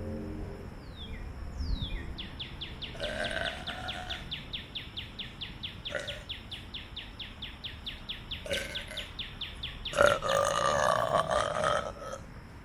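A person burping: a long, loud burp of about two seconds starts about ten seconds in, with a shorter one about three seconds in. Behind it runs a rapid, even chirping, about seven a second, and a bird gives two short falling calls near the start.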